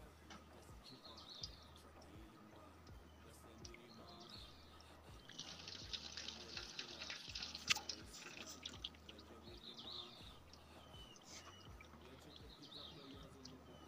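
Faint bird chirps every few seconds over a low steady hum. About five seconds in comes a few seconds of crackling rustle, ending in one sharp click.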